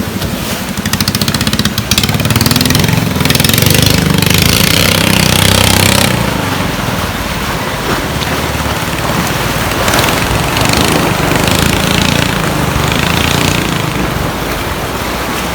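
A small engine running steadily and loudly with a rapid low chugging.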